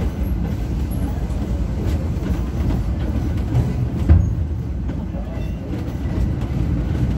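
Frisco Silver Dollar Line steam train's passenger car rolling along the track, heard from inside the open car: a steady low rumble with occasional clacks, and a louder jolt about four seconds in.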